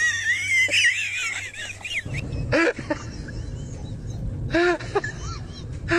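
Bird calls: a high, warbling call over the first two seconds, then a few short calls that rise and fall in pitch, about two and a half and four and a half seconds in, over a low steady background noise.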